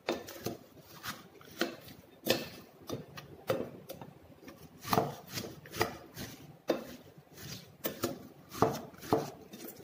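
Wooden spatula stirring and tossing shredded red cabbage in a glass bowl: irregular scrapes and knocks of the wood against the glass, roughly one a second, over the soft rustle of the cabbage.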